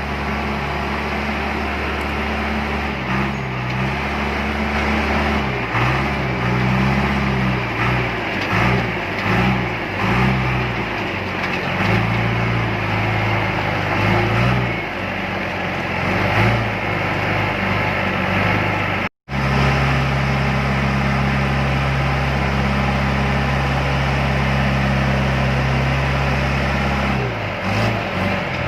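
Diesel engines of heavy farm and construction machinery running. Engine speed rises and falls repeatedly at first, then holds steady after a brief dropout in the sound about two-thirds of the way through.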